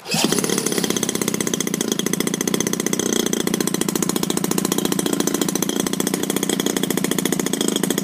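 EME35 single-cylinder two-stroke petrol model aircraft engine firing up abruptly off its electric autostart starter and then running steadily at low speed with an even, rapid beat, driving the propeller.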